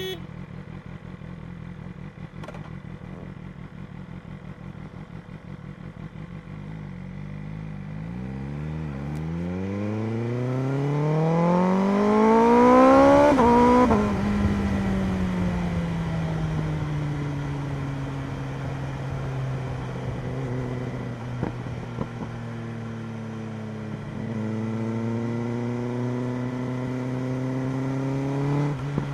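BMW M1000RR sport bike's inline-four engine, heard from on the bike. It runs steadily at low revs, then climbs in revs for about six seconds under acceleration. The revs drop sharply at the peak, then it settles into a steady cruise at lower revs.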